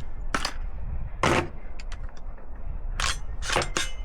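Gunshots at a shooting range: about five sharp reports at uneven intervals, the loudest a little past a second in and three close together near the end, with a few fainter clicks between.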